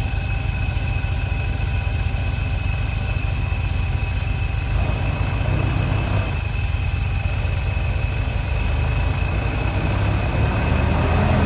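Off-road 4x4 pickup's engine running at low revs as the truck crawls through deep mud, picking up a little about five seconds in and again near the end.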